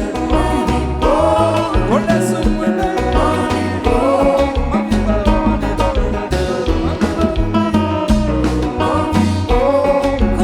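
A live band playing Haitian music, with a heavy pulsing bass line, drums and gliding melodic lines from guitar or voice.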